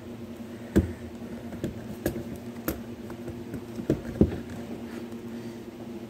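Scattered sharp clicks and knocks of a multi-function wire crimping tool being handled and closed on an insulated butt connector, about six distinct ones, over a faint steady hum.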